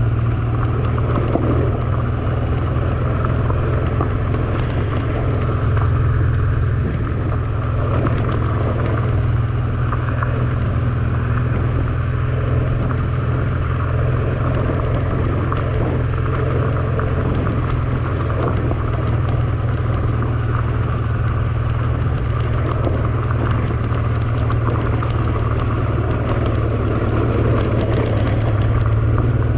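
Honda Transalp XL650V's V-twin engine running at a steady pace while riding, a constant low drone with no clear revving or gear changes.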